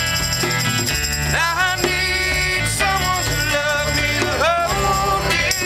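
A band playing, with a steady bass line under a melody whose notes slide in pitch.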